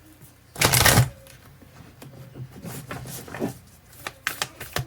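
A deck of tarot cards being shuffled and handled: a short loud rush of shuffling just under a second in, then light clicks and taps as the cards are handled and drawn.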